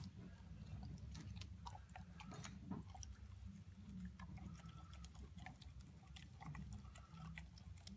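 A dog eating moist canned dog food from a stainless steel bowl: faint, scattered licking, chewing and smacking clicks.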